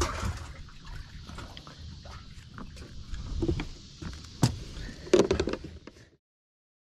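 Handling noises in a fishing boat just after a crappie is landed: scattered light clicks and knocks, a sharp knock about four and a half seconds in and a short clatter of knocks just after five seconds, then the sound cuts off abruptly.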